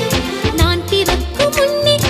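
Background music in an Indian film-song style, with a steady beat and a wavering melody line over a bass line.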